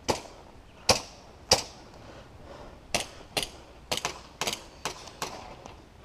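About ten sharp cracks of game pistols firing in an uneven string. The two loudest shots come about a second in and half a second later, followed by a quicker run of shots.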